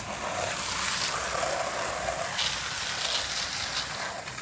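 Water spraying in a loud, steady rushing hiss that starts abruptly.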